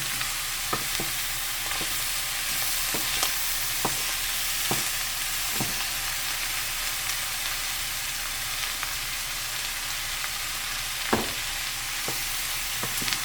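Cut white corn kernels sizzling in hot grease in a frying pan, a steady hiss, while a utensil stirring them clicks and scrapes against the pan every second or so, with one louder knock near the end.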